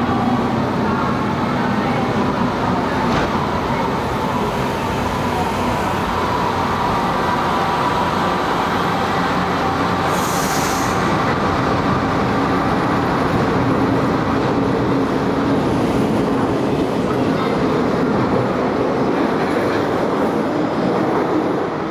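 Original-series Milan Metro Line 1 train pulling out of an underground station and running past: steady rail and wheel noise with a faint motor whine, and a brief high hiss about ten seconds in.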